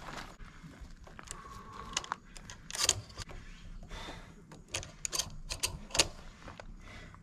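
Irregular metallic clicks and clacks of a rifle being handled on top of a plastic barrel, with two louder knocks about three seconds in and near the end.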